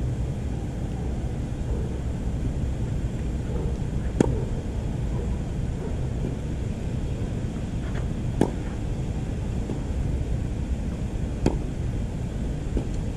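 Tennis racket striking a ball three times, a few seconds apart, each a sharp single pock, over a steady low rumble of outdoor background noise.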